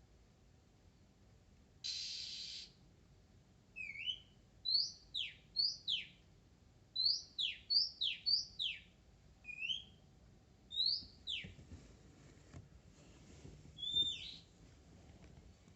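Oriental magpie-robin singing: a harsh rasping note about two seconds in, then a quick run of sharp whistled notes that drop steeply in pitch, mixed with shorter up-slurred notes, and a few more whistles after a pause near the end.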